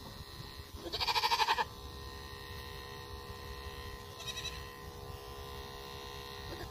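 A Nigerian dwarf goat doe bleats loudly once about a second in, then gives a shorter, fainter bleat a little after four seconds, over the steady hum of electric animal clippers trimming her coat.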